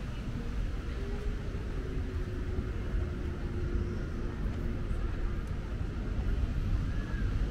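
Steady low outdoor city rumble, with a faint held tone for a few seconds near the start and a brief faint chirp near the end.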